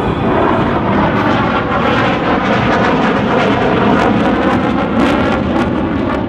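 Chengdu J-10 fighter jets flying past, their turbofan engines making a loud, dense rush with a crackle in the high end.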